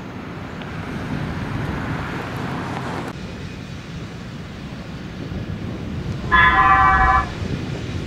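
Steady low rumble of vehicles and site machinery, with a vehicle horn sounding once for about a second near the end, the loudest sound.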